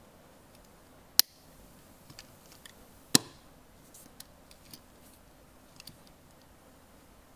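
Diecast toy car's baseplate and body being pressed together by hand, clicking as the parts seat: two sharp snaps about a second and three seconds in, then a string of lighter clicks and taps.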